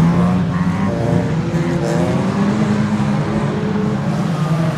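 A pack of 1600cc Production Rod race cars with their engines running hard as they lap the oval, several engine notes overlapping and rising and falling as the cars pass and change speed.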